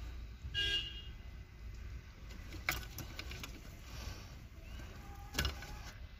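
Gloved hands handling a car seat's wiring harness and plastic connectors, with two sharp clicks, one near the middle and one near the end, over a steady low rumble. A short horn-like toot sounds about half a second in.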